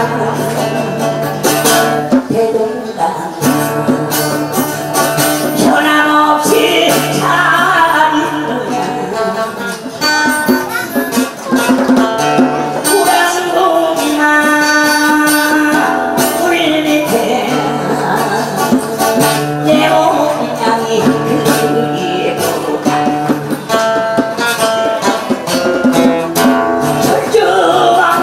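Live acoustic guitar strummed with a djembe keeping the beat, and a man singing over them.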